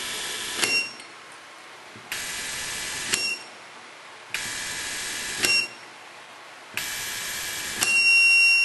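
KILEWS SKD-BE500 brushless electric screwdriver driving four screws, its motor running about a second each time and cutting out with a click and a short beep as each screw is counted. Near the end a longer, louder beep sounds as the countdown reaches zero, signalling the batch of screws is complete.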